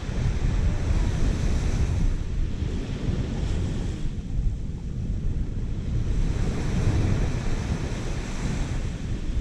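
Wind buffeting the microphone with a low rumble that rises and falls, over the steady wash of surf at the shoreline.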